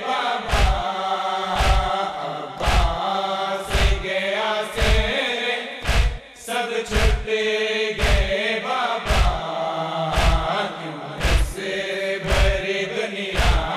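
Crowd of men chanting a Shia mourning noha in chorus, kept in time by a steady beat of heavy thumps about twice a second from palms striking bare chests in matam.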